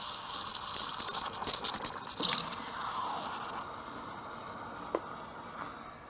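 Cuisinart EM-200 steam wand frothing milk in a stainless steel pitcher: steam hissing into the milk with a rapid crackle over the first two seconds, then a softer steady hiss, with a single click near the end.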